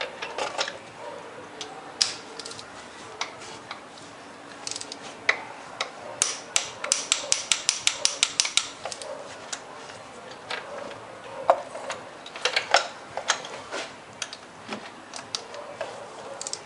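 Hand tools working on spark plugs: a ratchet wrench clicking rapidly for about two seconds, about six clicks a second, near the middle. Scattered single metal clicks and knocks come before and after it.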